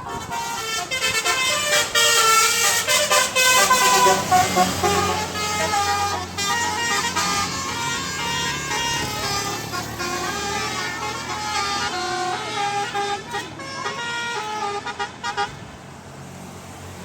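A bus's telolet horn, a multi-tone musical air horn, playing a long quick run of changing notes for about fifteen seconds, stopping near the end.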